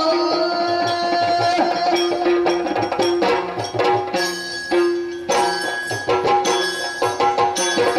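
Yakshagana background ensemble playing: rapid maddale drum strokes and sharp clicks of small hand cymbals over a steady held drone note.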